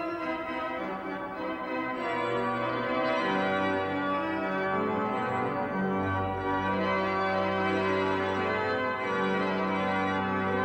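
Pipe organ playing full sustained chords over a bass line whose notes change every second or two.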